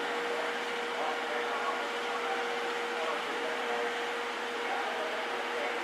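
Steam train standing at a platform: a steady hiss with one constant hum tone running underneath, with no change or sudden sound.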